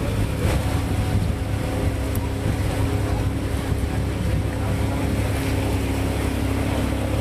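A motor running at a steady drone, with wind rushing over the microphone.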